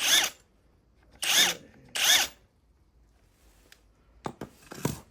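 Handheld power drill/driver run in three short bursts, each spinning up and back down, then a few light clicks and a knock near the end.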